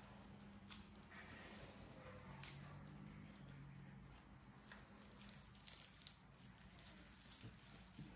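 Near silence: faint rustling of cotton T-shirt fabric and wire being handled, with a few soft clicks and a low steady hum underneath.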